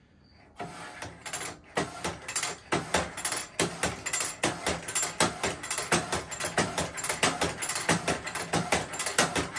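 Hand-operated bandsaw-mill blade tooth setter being worked tooth by tooth: a quick run of metal clicks and clacks, about three or four a second, starting about half a second in, as the blade is advanced and each tooth's set is pressed and gauged.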